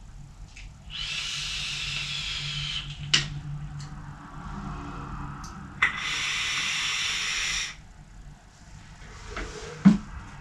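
Vaping on an electronic cigarette: two long airy hisses, each about two seconds, of drawing through the atomizer and blowing out the vapour. A few sharp clicks fall between them.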